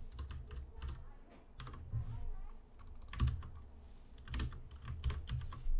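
Computer keyboard being typed on in irregular runs of keystrokes, with louder key strikes about three seconds in and near the end.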